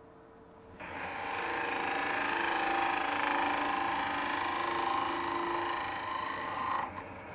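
A wood lathe comes up to speed about a second in, and a turning tool cuts the inside of a spinning end-grain bowl with a steady shaving sound that stops shortly before the end.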